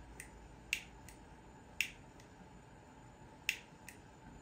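A lighter's ignition clicking over and over without catching, each loud click followed by a softer one a moment later. The lighter is struggling to light in the cold.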